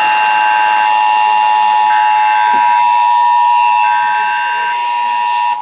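Emergency Alert System Attention Signal: the steady two-tone alert of 853 and 960 Hz sounded together, marking the start of a statewide Required Monthly Test. It cuts off near the end.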